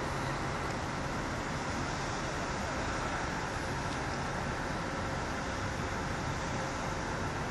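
Steady, even outdoor background noise with a faint hum and no distinct events.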